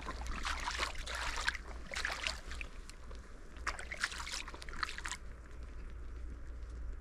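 Wading through shallow tidal water over mud: irregular sloshing and splashing that thins out about five seconds in, as the wader crouches to reach into the water with a crab hook. A steady low hum runs underneath.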